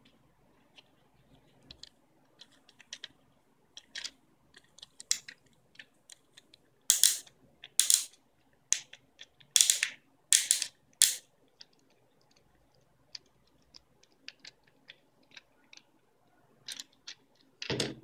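Plastic fidget cube being clicked and fiddled in the hand: a scatter of short, sharp clicks from its buttons and switches, with a run of five louder, longer clicks in the middle. Near the end comes a louder knock as the cube is set down on the table.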